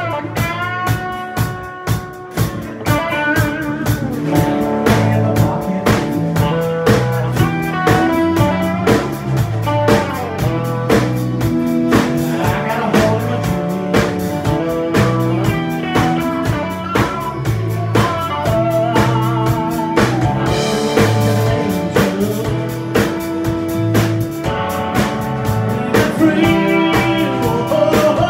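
Live country band playing a song: electric guitar with bent notes over acoustic guitar and a steady drum kit beat, with a man singing lead.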